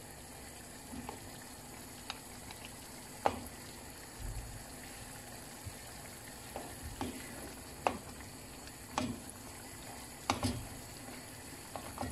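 Pork hocks being stirred in a simmering sauce in a non-stick pan: a utensil knocks and scrapes against the pan about ten times at uneven intervals, over a steady bubbling sizzle.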